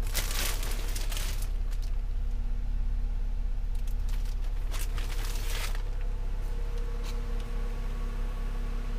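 Plastic wrapping crinkling as a hand touches it, for about the first second and a half, with another spell of rustling from about four to six seconds in, over a steady low hum.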